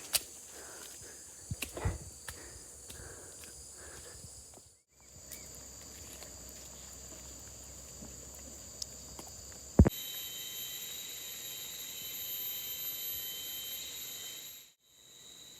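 Chorus of forest insects: steady, high-pitched, whining tones that change in pitch partway through. Irregular footsteps on a muddy track sound in the first few seconds.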